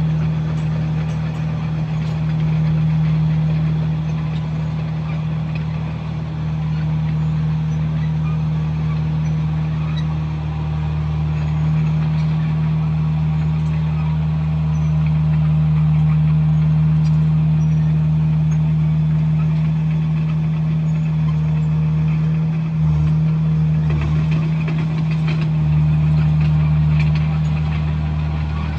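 Komatsu bulldozer's diesel engine running steadily as a loud, even low drone, briefly dipping in its lowest tones about three-quarters of the way through.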